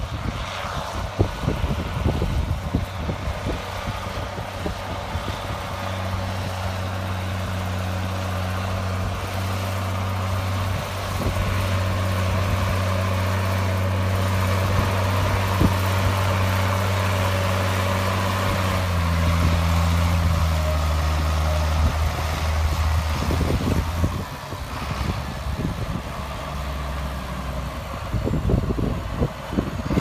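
John Deere 7700 tractor's six-cylinder turbo diesel engine running steadily under load while pulling a seven-furrow reversible plough. It grows louder as the tractor comes close and passes, and its note drops a step about two-thirds of the way through before fading back.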